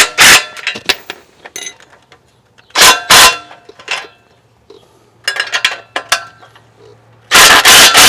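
Ratchet strap being tightened to lift an exhaust pipe: loud bursts of ratcheting, one about three seconds in and a longer one near the end, with a few scattered clicks between.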